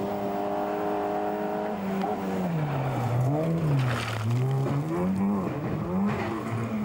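Rally car engine held at high revs, then the revs falling and rising several times as the car slides on gravel, with rough bursts of noise in the middle and about two-thirds in.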